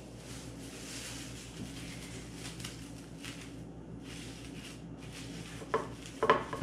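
Thin plastic cling wrap rustling and crinkling as it is handled and stretched over a baking sheet of dough balls, with a few sharper crackles near the end.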